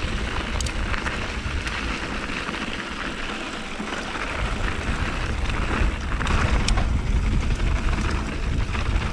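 Polygon Siskiu T8 mountain bike rolling fast over loose gravel and dirt: a steady rush of wind buffeting the helmet-mounted camera's microphone over tyre noise and rattling, with a couple of sharp knocks from the bike, one about half a second in and one near the end.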